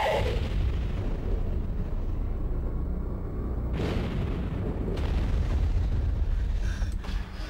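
Trailer sound design under the title cards: a deep, steady rumble with booming hits. A whooshing swell rises into a hit about four seconds in, and sharper single strikes follow near five and seven seconds.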